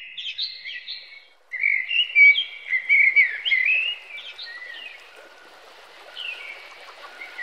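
Birds singing in quick rising and falling chirps, with a short break after about a second and a half, then fading after about four seconds into a fainter, steady chorus of animal calls with a held note and rapid ticks, like a night-time frog chorus.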